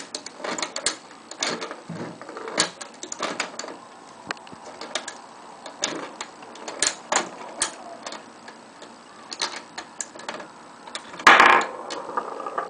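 Lego pinball machine in play: irregular plastic clicks and clacks from the gear-driven Lego flippers being worked and a silver ball knocking about the brick table, with a louder clatter near the end.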